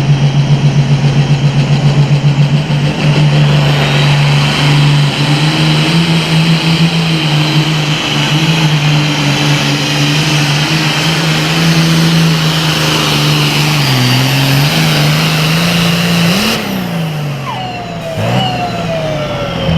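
Wolverine Deere, a John Deere super farm pulling tractor, with its engine held near full throttle under load through a pull, at a steady high pitch that pulses at first and shifts up and down slightly. Near the end the revs drop away, and a high whine falls off as the engine comes off load.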